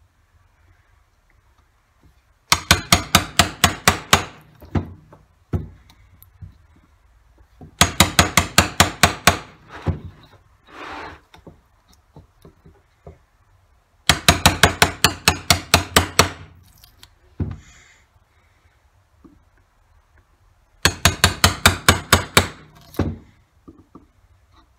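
Hammer tapping a wood chisel into a board to chop out wood for a carving, in four quick runs of about ten light strikes each, roughly six a second, with pauses between.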